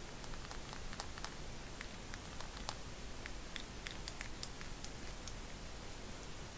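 White-faced owl drinking water, its beak making small, irregular clicks and taps over a steady hiss.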